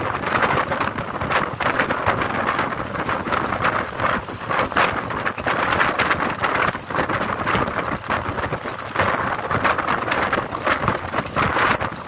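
Wind rushing and buffeting against a phone microphone from a moving vehicle, over the vehicle's road noise, rising and falling in irregular gusts.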